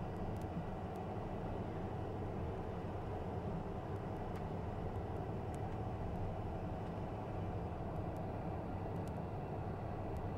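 Cockpit noise of a Cessna Citation M2 taxiing with its twin Williams FJ44 turbofans at idle: a steady, even hum mixed with cabin air, with no change in pitch or level.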